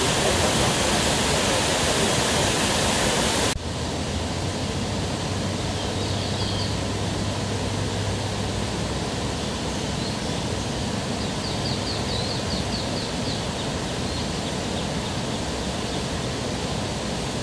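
Steady rushing outdoor noise with no clear single source, louder for the first few seconds and dropping abruptly at a cut. Faint series of rapid high chirps come through twice, around the middle and later.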